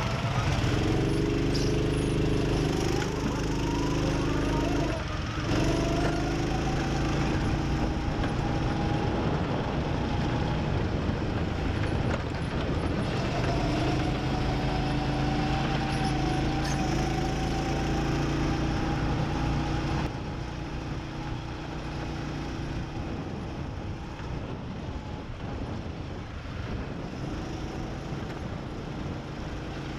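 Small go-kart engine running, heard from on board the kart, its pitch rising as it accelerates. About two-thirds of the way through it drops quieter and continues.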